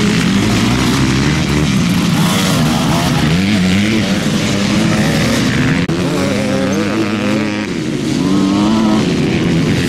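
Motocross dirt-bike engines revving up and down as the riders power through corners. At one point two bikes are heard together. The sound breaks off sharply for an instant about six seconds in.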